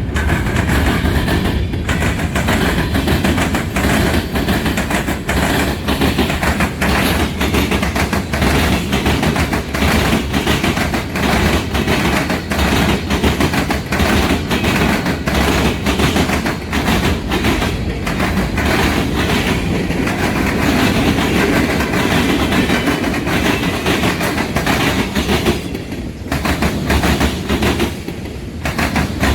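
Freight train cars rolling past, with steel wheels clicking and clacking over the rail joints under a steady low rumble.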